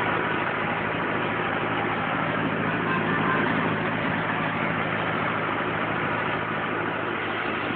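Rastrojero pickup driving along at a steady pace, its engine running evenly under a constant hum of road noise.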